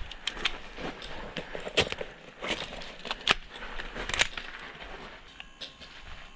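Footsteps and rustling of a player moving over the ground, with scattered sharp snaps and clicks at uneven intervals, the loudest about two, three and four seconds in.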